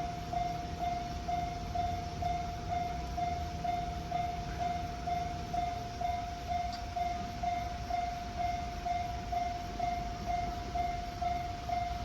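Japanese railway level-crossing warning bell ringing on and off at a steady pace of about two strikes a second, over a low rumble.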